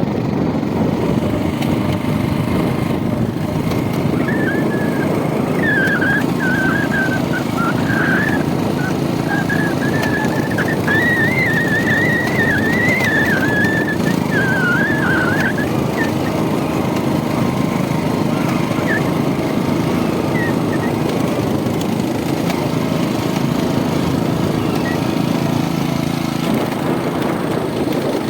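Steady engine and road rumble of a moving vehicle. From about four seconds in, a wavering high whistle rises and falls over it for roughly ten seconds.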